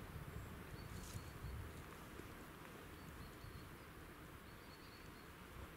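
Faint rural outdoor ambience: a low, steady rumble of wind with a few short, high chirps, likely small birds, about a second in and again near the end.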